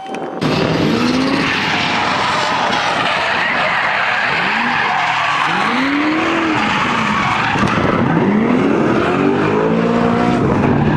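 A drift car's engine revving up and down several times over loud, continuous tyre squeal and skidding. It starts abruptly about half a second in.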